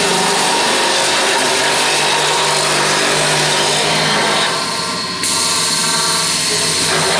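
Automatic wood-shaping lathe running and cutting a wooden rod, a loud steady machining noise. The cutting sound thins out briefly about four and a half seconds in, then comes back.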